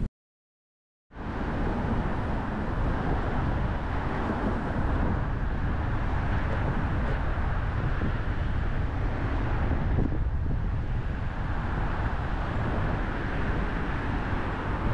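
About a second of dead silence, then the steady road noise of a car driving: tyre rumble and wind noise, with no engine note standing out.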